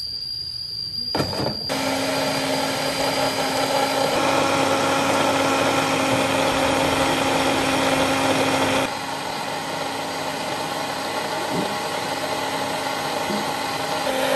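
Electric blender switched on about a second and a half in, its motor running steadily with a humming tone over a grinding noise. It drops a little in level about nine seconds in.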